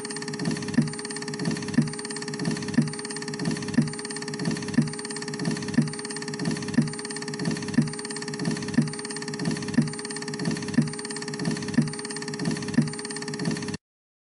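CD/DVD disc printer running: a steady mechanical hum with a regular knock about twice a second, cutting off abruptly near the end.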